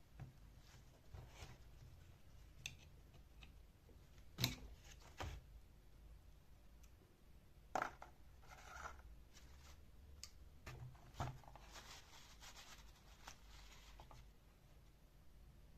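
Faint, scattered clicks and knocks with short stretches of scraping and rubbing, typical of small parts being handled and worked on by hand; two sharper knocks stand out, about four and a half seconds in and near eight seconds.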